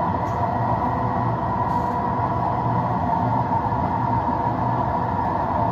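Simulated electric-train running sound from a driving simulator's speakers: a steady rumble of wheels on rail with a constant motor whine as the train runs along.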